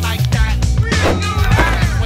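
Soundtrack music with a heavy, continuous bass and a lead line that bends in pitch.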